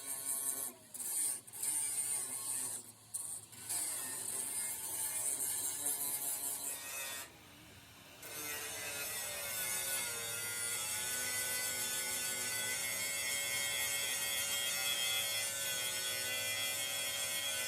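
Workshop machine motor running with a steady whine. It cuts out briefly a few times early, drops away for about a second, then spins back up and runs steadily.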